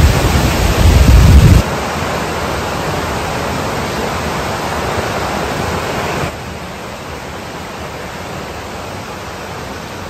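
Rushing water of a rain-swollen waterfall and its cascading creek, a steady noise, with a deep rumble for the first second and a half. The level steps down about six seconds in.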